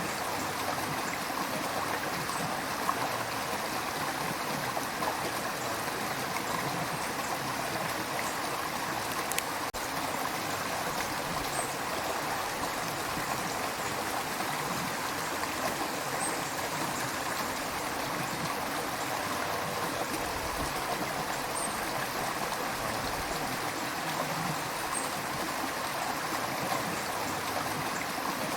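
River water flowing steadily over rocks: a continuous, even rushing and babbling.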